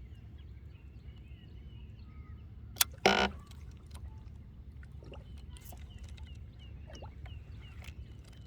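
Birds chirping over and over against a steady low rumble. A sharp click comes almost three seconds in, followed at once by a brief, loud, harsh sound.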